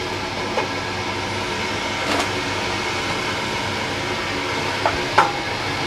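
Steady rushing hiss from a hot metal steamer pot, with a few light metal knocks. The loudest knock comes about five seconds in, as a round tin of batter is set down on the perforated steamer tray.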